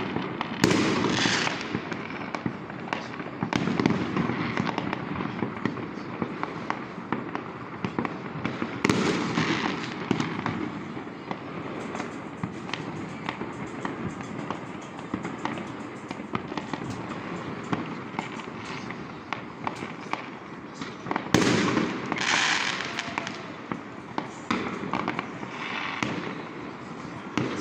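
New Year fireworks and firecrackers going off without a break: a dense stream of bangs and pops, with louder bursts about half a second in, around nine seconds in and around twenty-one seconds in.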